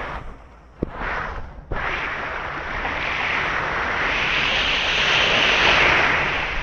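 Sea surf on the shore: a short wash about a second in, then a bigger wave rushing in from about two seconds in and swelling to its loudest near the end.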